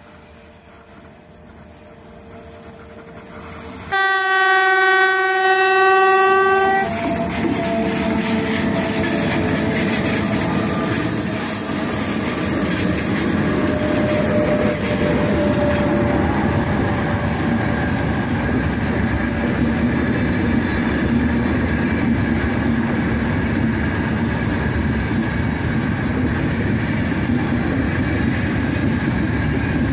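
Freight train hauled by 2ES5K 'Ermak' electric locomotives approaching, gathering speed. About four seconds in the locomotive gives a sudden horn blast of about three seconds as a greeting. The locomotives and then the freight wagons roll past with steady wheel and rail noise.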